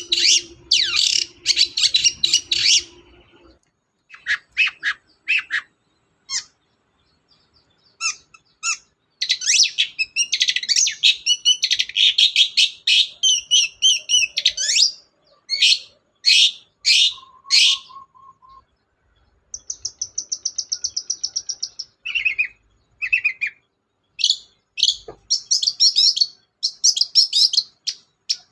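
Long-tailed shrike (cendet) singing in loud bursts of rapid, high, chattering chirps broken by short pauses. About two-thirds of the way through comes a fast, even, high trill.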